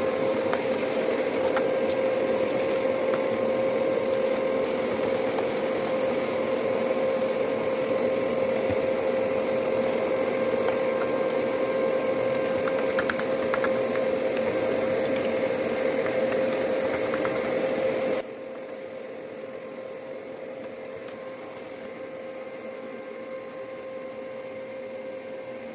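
Vacuum cleaner running with a steady whine and hiss while it draws dust out of a television, with a few light clicks. About three quarters of the way through it abruptly gets much quieter but keeps running.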